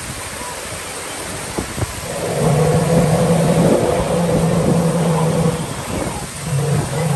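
Artificial rock waterfall splashing into a pool, a steady rush of water. A low humming tone comes and goes over it, in three stretches of about a second each from a couple of seconds in.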